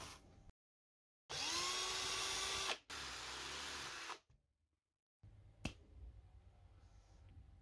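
Handheld power drill running in two short bursts. The first spins up to a steady whine for about a second and a half. The second is rougher and lower, the drill working at the metal steering knuckle. A single sharp click comes later.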